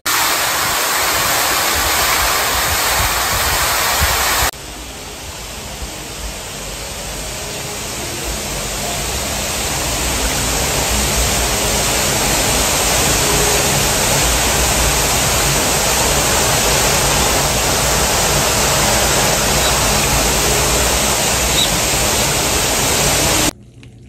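Steady outdoor rushing hiss. It drops suddenly about four and a half seconds in, slowly grows louder again, then holds steady until it cuts off just before the end.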